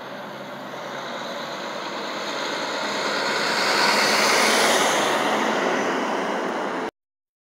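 Semi tractor-trailer's diesel engine and tyres growing louder as it approaches and passes close by. The sound peaks about four and a half seconds in, eases slightly as the truck goes past, and cuts off suddenly near the end.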